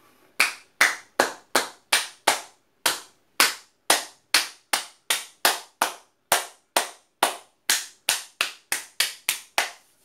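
Hand clapping as part of a qigong routine: about two dozen sharp claps, two to three a second, coming faster near the end.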